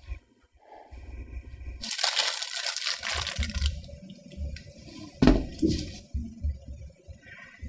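Handling noises from a toasted sandwich being put together on wrapping paper. A crackling rustle lasts about a second and a half, then comes a single sharp knock about five seconds in, over soft background music.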